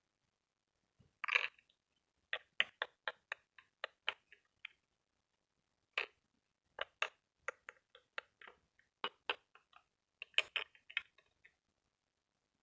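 Small hard plastic pieces clicking and tapping together as a toy mini refrigerator and its tiny play items are handled. The clicks come in irregular clusters, after a brief scrape about a second in.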